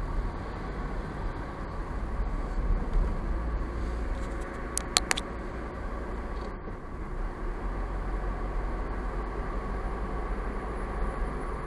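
Steady, low road and engine noise of a car driving, heard from inside the cabin. A few sharp clicks come about five seconds in.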